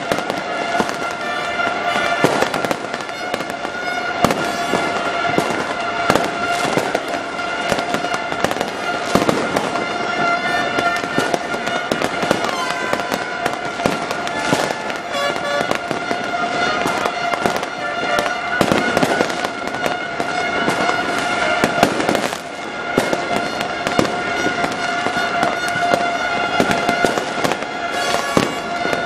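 A New Year's fireworks display bursting and crackling without a break, dense bangs and crackles one after another. A steady held tone with overtones runs underneath.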